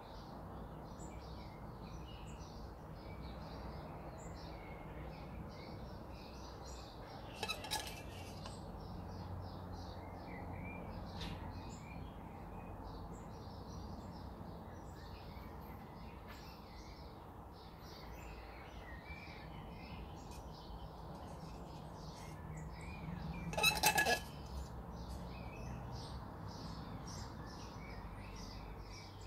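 Birds chirping over a steady low hum, with two short knocks, the louder one near the end.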